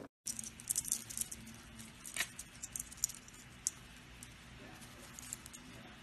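A white-bellied caique on its back, juggling and kicking a small ball toy in its feet: irregular quick rattling and clicking, busiest in the first few seconds, then thinning out.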